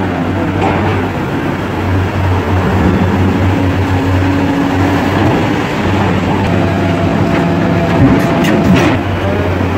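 Caterpillar 336D hydraulic excavator running under working load: a steady, loud diesel drone. A steady hydraulic whine joins at about six and a half seconds, and a few sharp metallic clanks come near the end.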